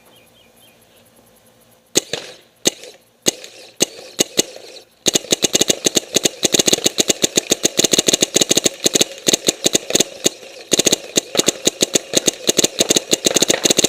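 Dangerous Power Rev-i electropneumatic paintball marker firing Reballs on semi with a 20-balls-per-second cap. A few separate shots come about two seconds in, then a fast unbroken string of rapid shots runs from about five seconds on, with one short break.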